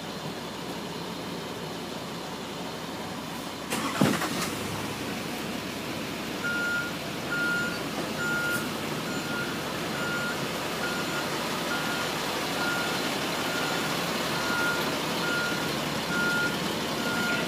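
Truck engine running while its reversing alarm beeps steadily, a little faster than once a second, starting about six seconds in. A single loud thump comes about four seconds in.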